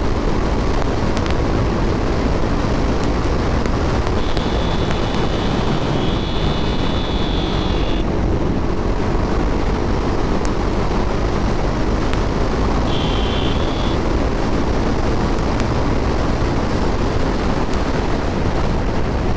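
Steady wind rush on the microphone with the rumble of a motorcycle and road noise while riding. A high, thin tone comes in twice: once for about four seconds, and once for about a second.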